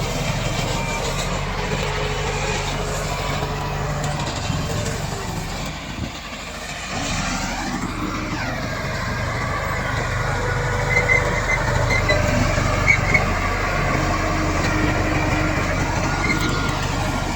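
Komatsu D68 bulldozer's diesel engine running steadily under load. About eight seconds in there is a brief change in engine pitch, and a few sharp metallic clanks come between about 11 and 13 seconds in.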